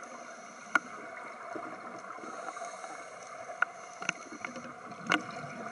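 Underwater ambience heard during a scuba dive: a steady hiss and rush of water, with a handful of sharp clicks scattered through it.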